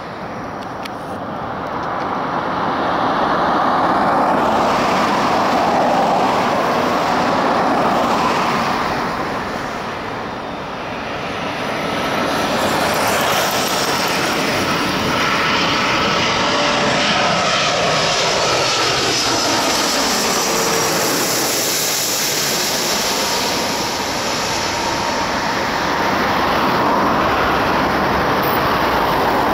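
Airbus A330-243 airliner's twin Rolls-Royce Trent 772B turbofans running at approach power as it passes low overhead on final approach. A whine glides down in pitch as it goes by, about halfway through.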